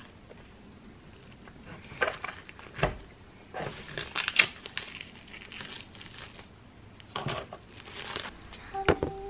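Plastic cheese wrapping crinkling and crackling in irregular bursts as it is handled and crumpled, with a spoon scraping soft cheese. A sharp clink with a brief ring near the end.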